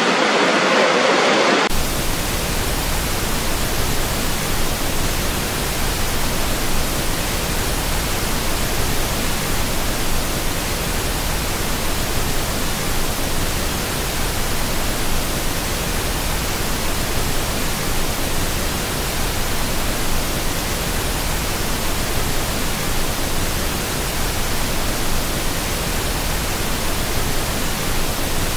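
Roar of the Horseshoe Falls at its brink for the first couple of seconds, then it cuts abruptly to a flat, steady hiss spread evenly across all pitches, like added pink noise, that holds unchanged.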